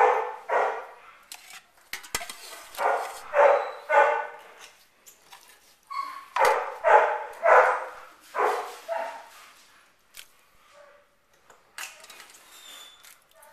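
Airedale terriers barking in clusters of short barks, falling quiet about ten seconds in, after which only faint clicks remain.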